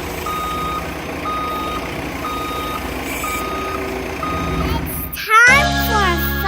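Backup alarm of a reversing construction vehicle: five steady single-tone beeps, about one a second, over a low engine rumble. About five seconds in, it cuts off suddenly and a children's music jingle starts.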